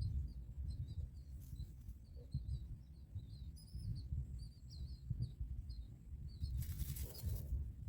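Birds chirping in many quick, short, high notes over a steady low rumble, with a brief rustle about a second long near the end.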